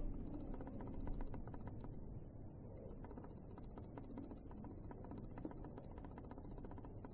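Faint, rapid, irregular light clicking over a low rumble.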